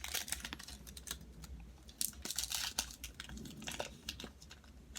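Plastic wrapper of a pack of baseball cards crinkling and tearing as the pack is opened, a run of irregular small crackles and clicks.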